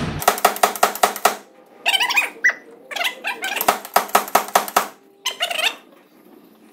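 Slide-hammer hub puller being worked against a stubborn wheel hub. First comes a quick run of sharp metal clicks and knocks, then squeaks and further clicks as the steel weight is slid along the rod.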